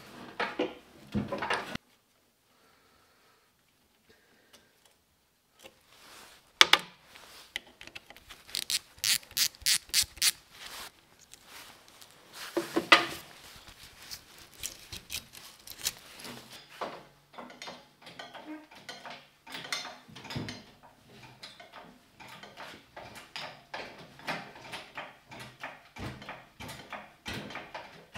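Metal clinks, clicks and knocks from hand work on a lathe being dismantled: tools and parts handled against cast iron and steel. Near the middle comes a run of about seven sharp, evenly spaced clicks, roughly three a second, and a dense irregular clatter of small knocks follows. There is a near-silent pause early on.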